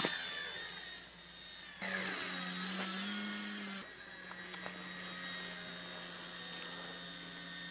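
Remote-controlled model airplane's motor and propeller running in flight: a steady drone with a thin high whine above it, its pitch shifting slightly at edits about two and four seconds in.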